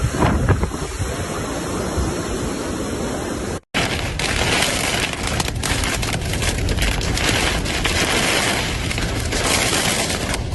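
Thunderstorm: loud, steady heavy rain and wind noise, with low rumbles in the first second. It cuts out abruptly about a third of the way in, then starts again as a harsher, denser downpour crackling with impacts.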